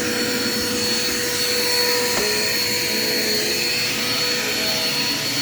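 Dirt Devil Quick Power vacuum cleaner running steadily, its motor giving a continuous rushing noise with a steady high whine over it.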